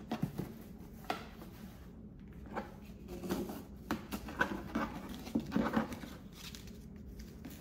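Ribbon rustling and sliding against a cardboard gift box as it is pulled and worked at the knot, with scattered soft scrapes and light taps from handling the box.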